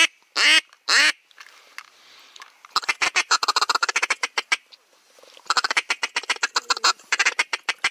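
Mallard-style duck call blown by a hunter: loud, short, falling quacks in the first second, then two runs of fast clucking feed chatter, each about two seconds long.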